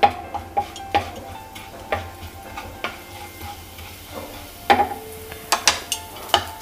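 Cumin seeds sizzling in hot oil in a non-stick kadhai, stirred with a wooden spatula that taps and scrapes against the pan. The taps come every second or so, then in a quicker cluster near the end.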